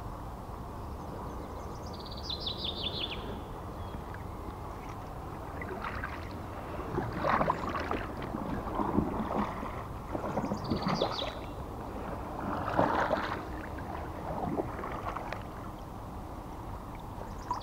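Inflatable boat being rowed on a river: irregular splashing oar strokes and water noise, busiest in the middle of the stretch. A small songbird sings a short descending trill of rapid high notes twice, once near the start and again past the middle.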